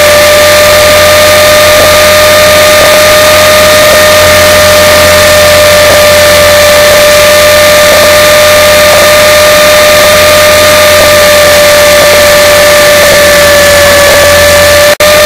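Electric RC helicopter (Align T-Rex 450SE V2) in flight, heard as a steady, unchanging whine over a heavy hiss, loud and distorted. The sound drops out briefly near the end.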